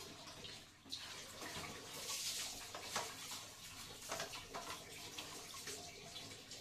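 Water splashing from a hand dipper and a sponge wiping a ceramic toilet, with small knocks and splashes throughout and the loudest rush of water about two seconds in.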